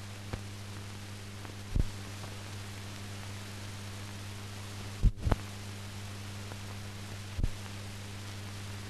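Steady electrical hum and hiss with no recorded sound, as on a transfer of silent film. A few low thumps break it, the loudest a close pair about five seconds in.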